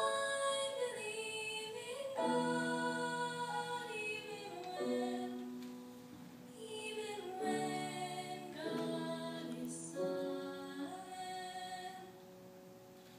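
A female soloist singing a slow melody of long held notes over a lower accompaniment, growing quieter near the end.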